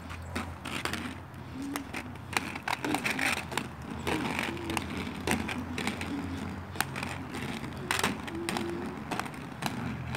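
Inline skate wheels rolling on rough asphalt: a steady low rumble with scattered clicks and scrapes from the strides.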